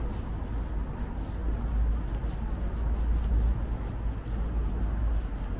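Outdoor ambience: a steady low rumble that swells for a couple of seconds in the middle, with faint scuffing footsteps on paving.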